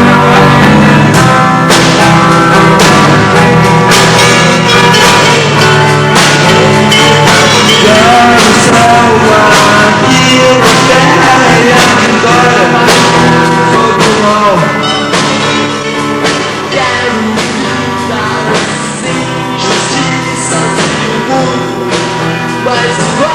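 Rock band playing live with a singer, electric guitar, bass and drums, loud and full in the room.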